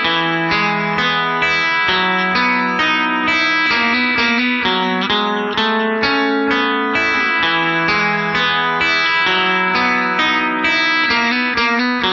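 Instrumental guitar music: a plucked guitar picks out a melody note by note, about three notes a second, over a steady lower bass line.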